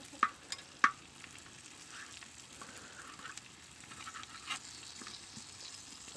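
Beef tripe sizzling as it fries in fat in a wide metal pan. A knife and spatula knock and scrape against the pan as the tripe is stirred, with a few sharp clinks in the first second and another about four and a half seconds in.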